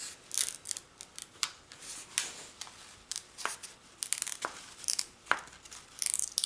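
Release paper being peeled off the tacky glue of a diamond painting canvas: a crackling, ripping-like sound in short irregular bursts. It is the paper pulling free of the adhesive, not tearing.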